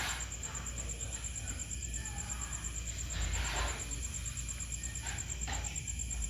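Night insects trilling steadily, a fast, even, high-pitched pulsing over a low hum, with soft rustling swells about three and a half seconds in and again near the end.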